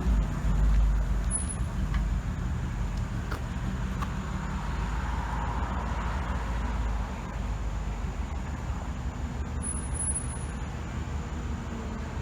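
Car engine running with a low rumble, loud at first and dropping off over the first couple of seconds, then holding steady.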